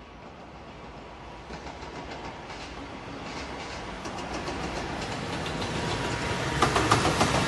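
JR Freight EF210 electric locomotive hauling a container freight train, approaching and passing, steadily growing louder. The wheels click over the rail joints, louder and more often near the end as the locomotive draws level.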